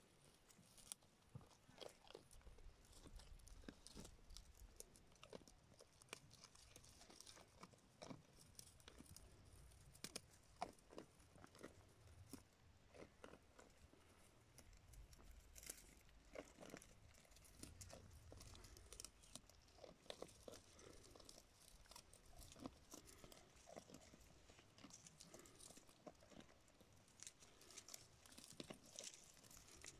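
Goats browsing dry scrub at close range: faint, irregular crunches and snaps of dry twigs being bitten off and chewed.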